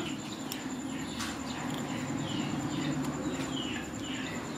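Bird chirping in the background: short falling chirps repeating about twice a second over a steady low hum.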